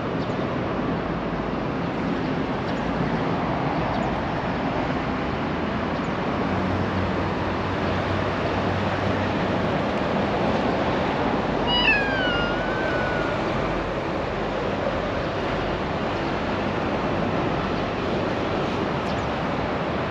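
A domestic cat gives a single meow about halfway through, lasting about a second and a half, its pitch dipping and then levelling off. Steady outdoor background noise runs underneath.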